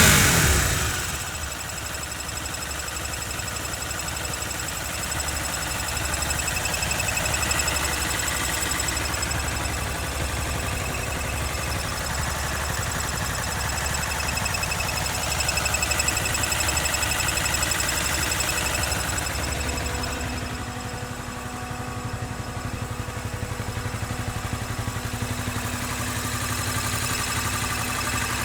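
Honda CBR250R single-cylinder engine dying back from a brief rev to a steady idle with a weird metallic rattling from the engine or gearbox. It is an unexplained fault that the service centre could not trace.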